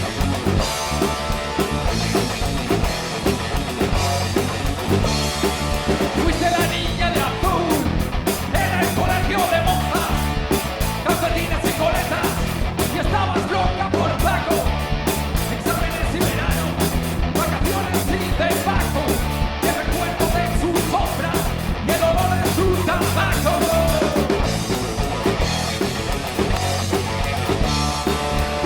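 Rock band playing live: electric guitars, bass and drums.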